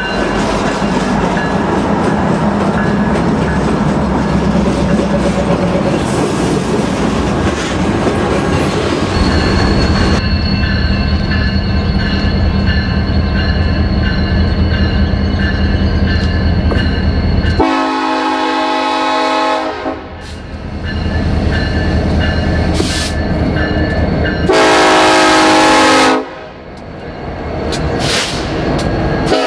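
A train rolling by with its wheels clattering on the rails. Then comes a Nathan K5LLA five-chime locomotive air horn in two blasts: one about two seconds long starting some 18 seconds in, and a shorter, louder one about 25 seconds in.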